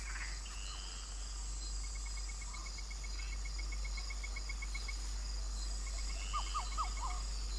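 Nocturnal forest insect chorus: steady high-pitched cricket trilling, with a rapid series of ticking chirps in the middle and again near the end. A few short falling calls come near the end.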